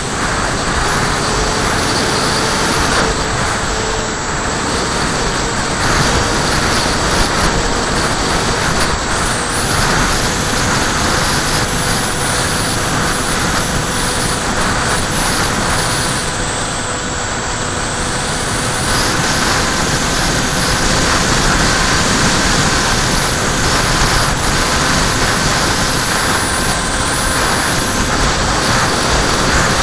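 Wind buffeting the onboard camera of a HobbyKing Skyfun foam model plane in flight, with the faint steady whine of its electric motor and propeller underneath.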